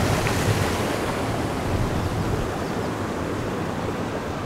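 Fast water rushing and churning as it pours through a rocky channel below a bridge, with some wind on the microphone. The steady rush thins out and eases a little in the second half.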